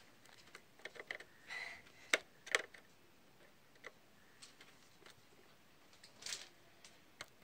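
Small screwdriver clicking and scraping in the screws of a plastic terminal block while the wires of a new power cable are fastened: irregular light ticks and short scrapes, with two sharper clicks a little after two seconds in.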